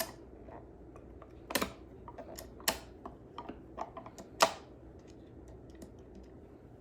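Irregular light clicks and taps of hand tools and small parts being handled while an amplifier circuit board is worked loose from its heatsink, with a few sharper knocks in the first half that thin out near the end.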